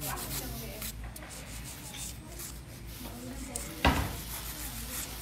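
Hand nail file rasping over long acrylic stiletto nails in repeated strokes, with one sharp knock about four seconds in.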